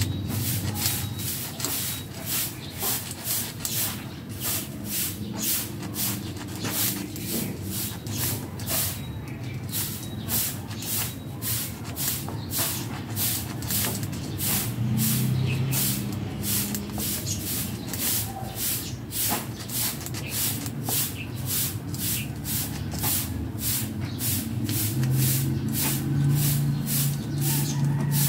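Short rhythmic hissing strokes, about two a second, as the electrode holder of an arc welder is cleaned by hand, over a low steady hum.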